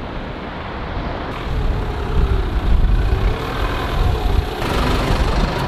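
A London black cab's engine and tyres as it comes along the road and pulls up close by. The sound swells about a second and a half in and then stays loud and steady.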